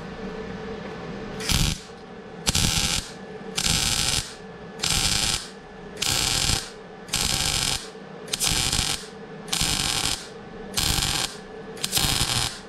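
MIG (wire-feed, gas-shielded) welding arc crackling in short stitch-weld pulses on 3 mm steel: about ten bursts, one roughly every second, starting about a second and a half in. The welder's wire feed has just been turned down and its voltage raised to get a softer arc sound.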